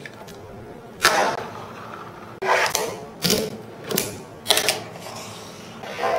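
A fingerboard's wooden deck and wheels clacking as it is flicked, popped and landed on a clear acrylic rail and tabletop: sharp clacks about once a second, some with a brief scrape after them.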